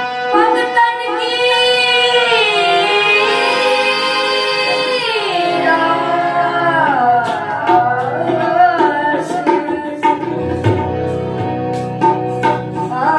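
A boy singing an alaap in raag Shivranjani: long held notes that glide up and fall back, over a steady sustained accompaniment, with short sharp percussive strokes joining in the second half.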